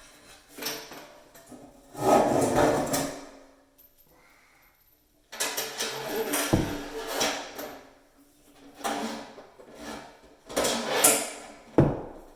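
Handling noises of a kitchen faucet being fitted onto a sink: parts clattering and scraping against each other in several stretches, with two sharp knocks, one about halfway through and one near the end.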